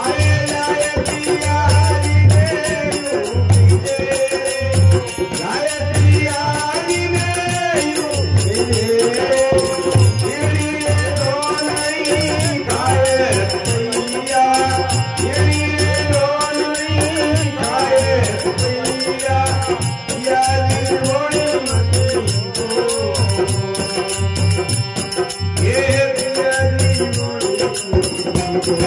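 A man singing an Indian folk song through a PA microphone, his voice sliding and holding long notes, over a regular low drum beat and instrumental accompaniment.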